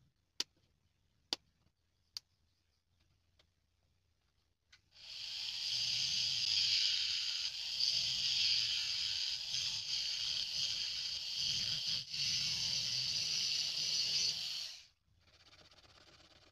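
A few sharp clicks, then a handheld rotary tool with a small cutting disc cuts through a thin PVC strip for about ten seconds: a steady high hiss of the disc in the plastic over a low motor hum, cutting off near the end. After it, a quieter scraping as a flat blade shaves the cut strip.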